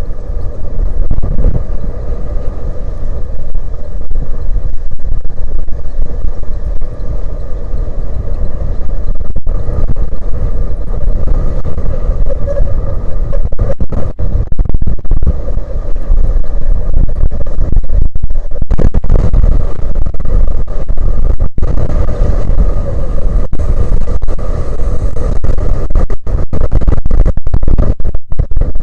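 Strong wind buffeting the microphone: a loud, continuous low rumble with gusty dropouts. A faint steady hum runs underneath.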